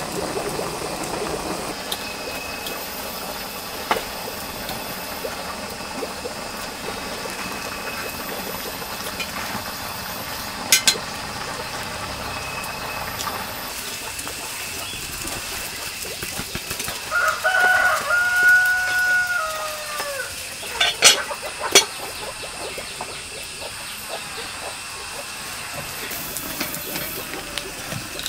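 A rooster crows once, about two-thirds of the way through: one long call that holds its pitch and then drops away at the end. Under it runs a steady hiss from the wood fire and boiling pot, broken by a few sharp cracks.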